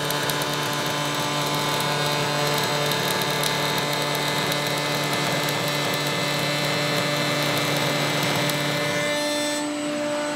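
Router table running a top-bearing pattern bit, cutting the edge of a curved wooden cot leg as it is fed along the pattern: a steady high-pitched machine whine with cutting noise. Near the end the cutting noise stops, while a lower steady hum carries on.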